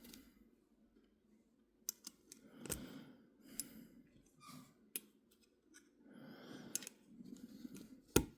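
Faint handling of small metal folding-knife parts: scattered light clicks and rubbing as pieces are fitted together, with the sharpest click near the end.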